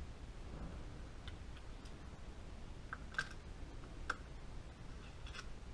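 Scattered light metallic clicks and taps from a hand tool on a rifle's action screws as they are snugged down, with two sharper clicks about three and four seconds in, over a low steady hum.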